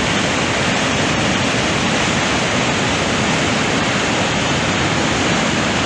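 Main falls of Augrabies Falls on the Orange River: water thundering down into the gorge, a loud, steady rush.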